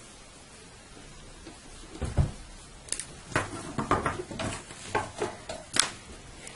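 Hands handling and turning velvet fabric on a tabletop: a run of irregular rustles and soft knocks that starts about two seconds in, over a steady low hiss.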